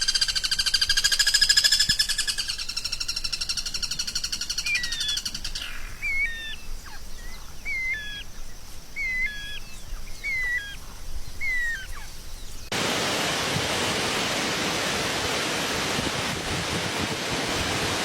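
A songbird sings a rapid buzzy rattle for about five seconds, then a series of short, hooked whistled notes at about one a second. About two-thirds of the way through, the recording cuts abruptly to a steady, even hiss like rushing water.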